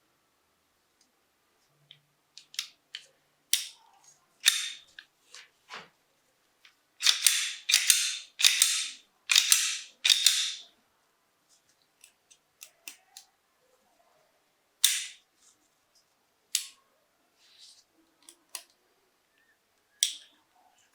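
Sharp metallic clicks from a Colt M1911A1 pistol being worked by hand. A run of five short sliding strokes about a third of the way in is typical of the slide being cycled on the reassembled frame.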